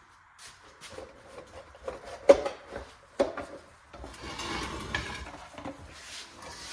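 The cover and parts of a truck seat's recliner ratchet mechanism being handled during disassembly: scattered small clicks, two sharp knocks about two and three seconds in, then a few seconds of rubbing and scraping.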